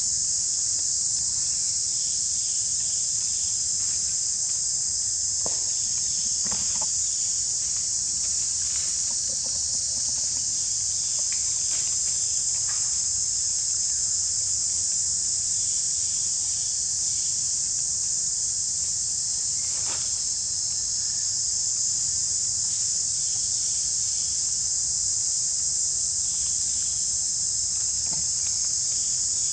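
Steady, high-pitched insect chorus droning without a break, with a few faint brief clicks.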